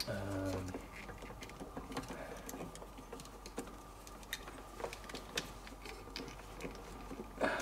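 Scattered light plastic clicks and rattles of a classic Mini's centre dash switch panel, British Leyland-type switches, and their wiring connectors being handled and worked apart.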